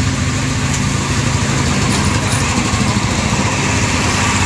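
An engine idling steadily: a constant low drone with a hiss over it.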